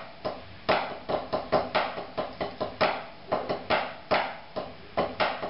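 Wooden drumsticks striking a rubber practice pad in a rudimental snare-solo passage: a stream of irregularly spaced strokes, some accented much louder than others.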